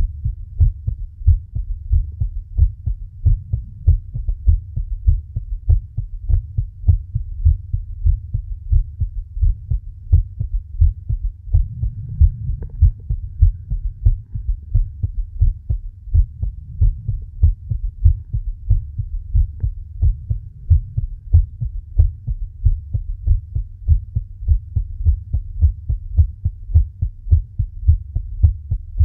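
A person's heartbeat: a steady, even run of low thumps, beat after beat without a break.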